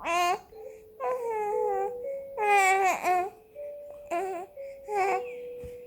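A four-month-old baby vocalizing in about five short wavering coos and cries, the longest and loudest about two and a half seconds in. Underneath runs a soft melody of plain held notes.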